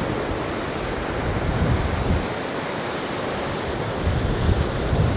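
Strong gusty storm wind blowing through woodland trees, with gusts buffeting the microphone in uneven low rumbles.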